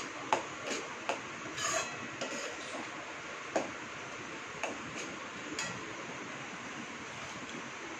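Steel spoon clinking and scraping against a steel kadai while stirring a thick onion paste: about eight sharp clinks and a short scrape over the first six seconds, the last as the spoon is set down in the pan, then only a steady faint hiss.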